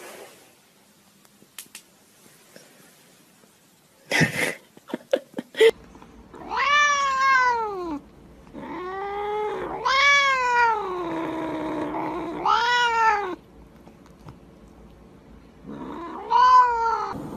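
A cat yowling: a series of long, drawn-out calls, each rising and then falling in pitch, with a few sharp knocks shortly before the first call.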